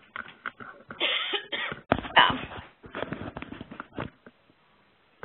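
A person coughing in a fit of repeated coughs that lasts about four seconds, the loudest coughs about one and two seconds in. It is heard over a web-conference audio line that sounds narrow and phone-like.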